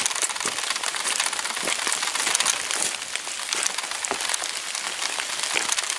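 Steady rain falling on leaves and the forest floor, a continuous hiss with many irregular drop ticks, along with footsteps on wet leaf litter.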